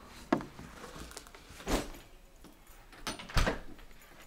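A few separate knocks and clatters of handling, the loudest a thud a little over three seconds in.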